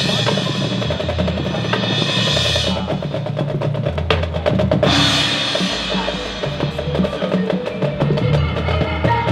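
High school marching band playing a drum-heavy passage: snare and bass drums play rapid strokes, thickest a few seconds in, while the winds swell in twice.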